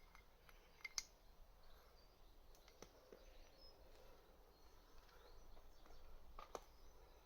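Near silence, with a few faint short clicks, the sharpest about a second in.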